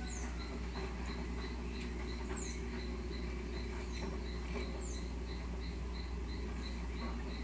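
Background ambience: a steady low hum, with a faint, high, evenly repeated chirp about three times a second, typical of a cricket-like insect. A few short, high, falling chirps, like small birds, come about a quarter second in, past two seconds and near five seconds.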